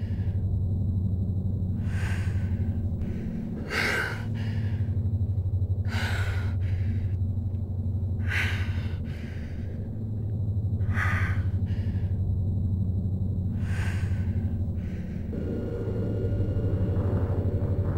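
Eerie soundtrack: a low drone with a fast, even pulse, and a breathy, hissing swell about every two to three seconds, six in all, like slow heavy breathing. The texture thickens a little near the end.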